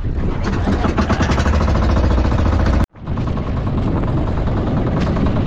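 Motorized bangka (outrigger boat) engine running steadily, with wind on the microphone. The sound cuts out for an instant about three seconds in and then carries on as before.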